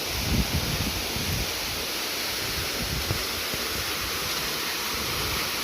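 Steady rushing noise of a waterfall, with an uneven low rumble coming and going underneath.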